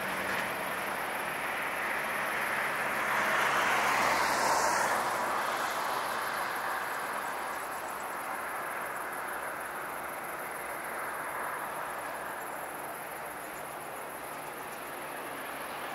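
Jet engine noise of a Boeing 737-800 with CFM56-7B engines on final approach to landing, heard from a distance as a steady rushing roar. It swells about four seconds in, then slowly fades.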